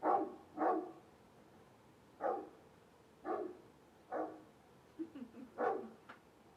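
A dog barking in short single barks, about seven at uneven intervals, with a couple of smaller yips in among the last few.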